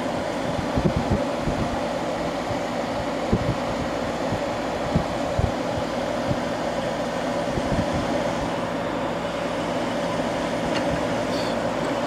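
1971 McGraw Edison Thomas Edison 6,000 BTU window air conditioner running on cool: a steady rush of fan air over the hum of its compressor, which runs smooth and really quiet on freshly replaced compressor mounts. A few soft low bumps come and go.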